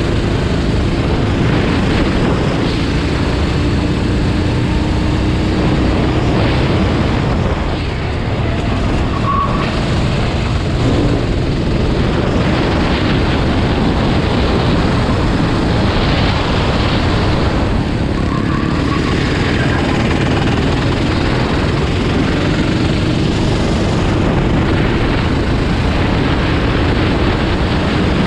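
Racing vehicle engines running continuously under a steady rush of noise, with a faint engine note rising slowly several times.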